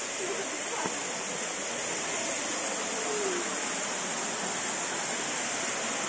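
Steady rushing of a waterfall, an even wash of falling water with no breaks.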